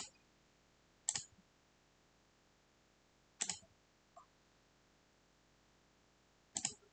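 A handful of separate, sharp clicks from working a computer's keyboard and mouse, spaced a second or more apart, with a quick double click near the end.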